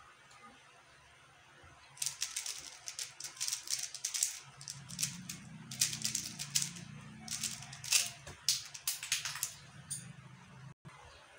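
QiYi X-Man Tornado V1 3x3 speedcube being turned fast during a speedsolve: rapid plastic clicking and clacking of the layers. It starts about two seconds in and stops near the end.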